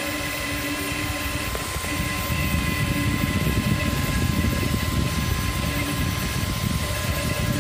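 Cetus3D desktop 3D printer running mid-print: its stepper motors whine in several steady tones that break off and start again as the print head changes moves. A low rumble grows louder about two seconds in.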